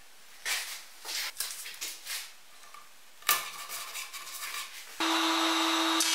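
A plywood panel is handled and rubbed against wood, with several short scrapes and a sharp knock about three seconds in. About five seconds in, a table saw is suddenly heard running steadily with a constant hum.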